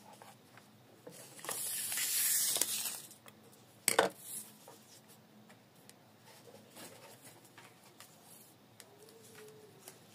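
Sheet of lined notebook paper rustling for about two seconds as it is cut and handled, then a single sharp knock about four seconds in as the scissors are set down on the table, followed by faint paper handling.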